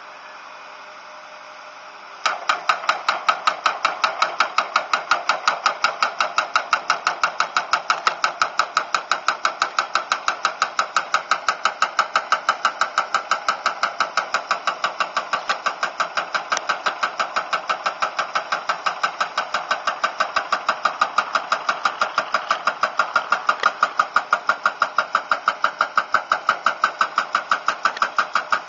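Pile driving rig's hammer striking a pile in a rapid, even rhythm of sharp metallic blows, starting about two seconds in over the excavator's running engine.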